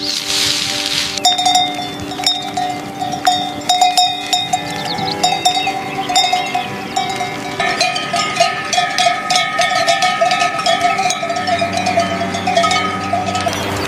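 Background music: held chords that change twice, with a bright ticking, cowbell-like percussion over them.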